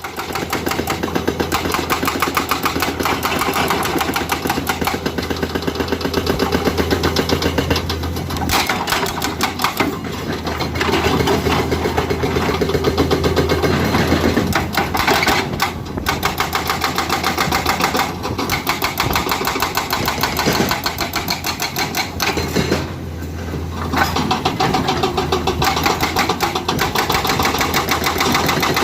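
Excavator-mounted hydraulic rock breaker hammering rock in a rapid, steady stream of blows over the running excavator engine, with a few short breaks.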